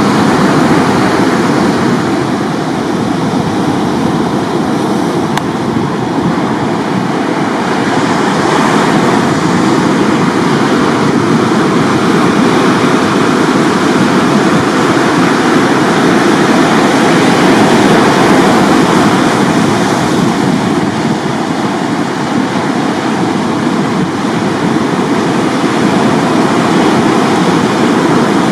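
Ocean surf breaking and washing up a sandy beach, a continuous rush of water noise that swells and eases slowly.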